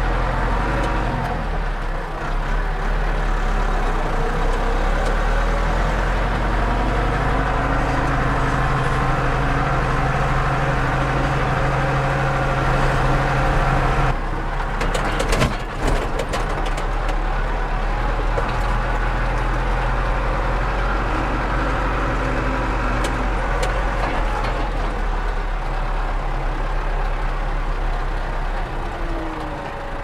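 Tractor engine running steadily under way, heard from inside the cab. About halfway through there are a few sharp clicks and the engine note changes, then it runs steadily again.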